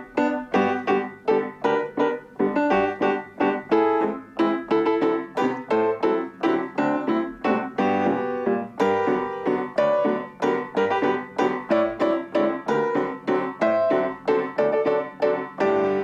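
Piano playing a brisk run of repeated chords, about three strikes a second.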